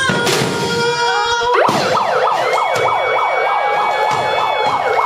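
Music with singing, then about a second and a half in a siren-like sound of rapid falling whoops, about four a second, that keeps going over the music.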